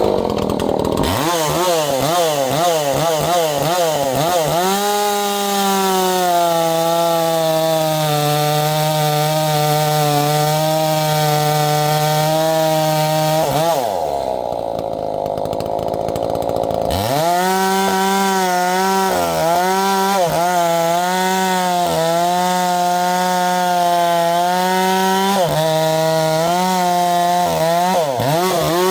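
Ported Echo CS590 two-stroke chainsaw revved up and down a few times, then held at steady high revs cutting through a log. About halfway through, the revs drop for a few seconds, then pick back up into the cut, with short dips near the end.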